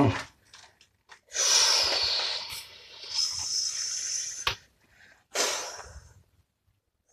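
A person making dragon noises with their mouth for toy dragons: a long breathy hiss of about three seconds, a sharp click, then a shorter hiss near the end.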